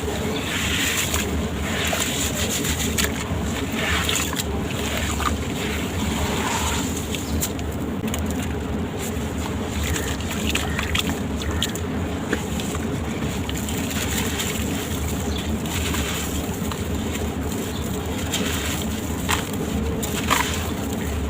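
Sand-cement shapes crumbling, with scattered gritty crackles and crunches over a steady low rumble.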